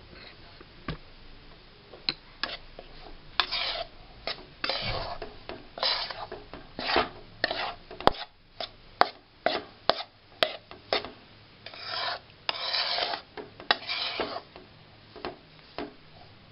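Spatula scraping and turning coarse besan (gram flour) as it roasts in ghee in a pan: irregular rasping strokes, with a few sharp knocks of the spatula against the pan. The flour is being stirred continuously over low heat so it does not burn.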